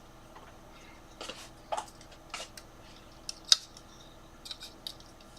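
Light clicks and small plastic knocks from a computer case fan being handled and swapped, the loudest a sharp click about three and a half seconds in, over a faint steady hum.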